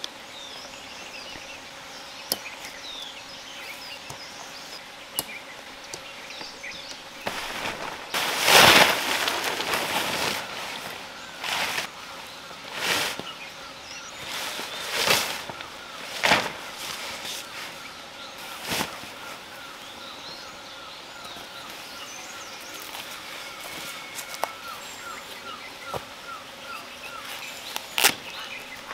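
Bursts of rustling and handling noise from a tent being pitched, the loudest about eight seconds in, with a sharp snap near the end. Birds chirp in the background, and a repeated ticking call runs through the second half.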